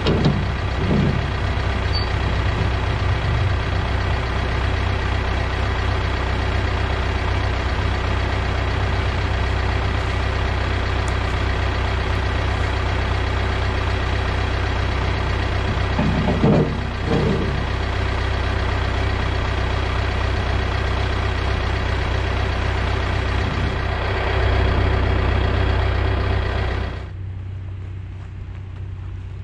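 John Deere loader's diesel engine idling steadily. Near the end it drops sharply to a much quieter level.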